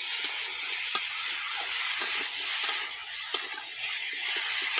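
Cubed kohlrabi and potato frying in oil in a metal karahi, sizzling steadily, with a steel spatula stirring and giving a few sharp scrapes and knocks against the pan.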